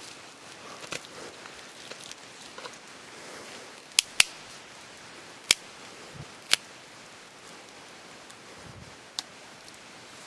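Sharp cracks and knocks of primitive hand tools working a dry incense cedar stick: a close pair about four seconds in, then three spaced single strikes, with fainter ticking and scraping between.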